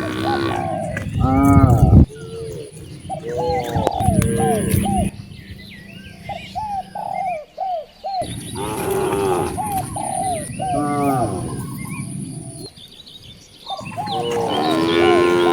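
A herd of cattle mooing and bellowing, with several long, pitched moos. Between them come runs of short, higher calls repeated about three a second.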